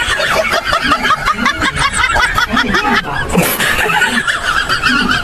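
Laughter from several voices overlapping, running without a break.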